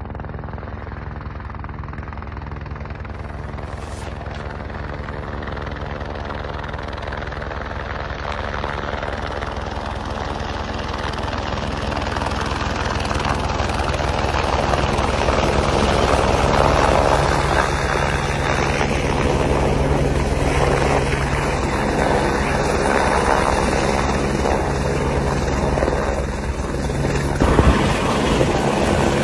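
Light helicopter flying, its turbine and rotor blades making a steady beating whine that grows louder over the first half as it comes closer. There is a brief louder burst near the end.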